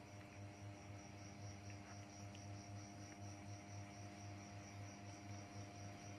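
Faint, steady electrical hum with a low drone and a few thin steady tones above it: room tone, with no clear sound from the playing monkey.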